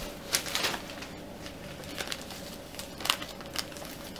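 Wrapping paper crinkling and rustling as it is picked up and handled, in several short crackly bursts, the loudest about half a second in.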